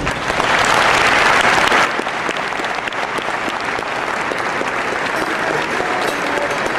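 Large audience applauding in a hall, a dense crackle of many hands clapping. It is loudest for the first two seconds, then goes on steadily at a lower level.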